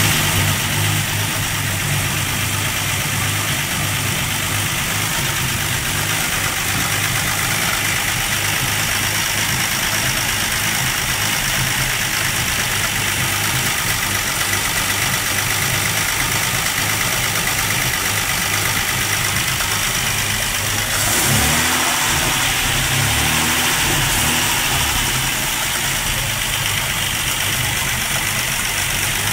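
Armstrong Siddeley Sapphire 346 straight-six engine running steadily on a test stand, with a short rise in revs and back down about two-thirds of the way in.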